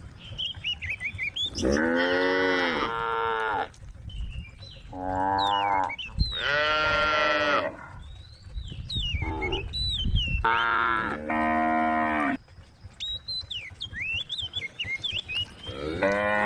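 A cow mooing again and again, about seven calls each lasting a second or so, separated by short pauses.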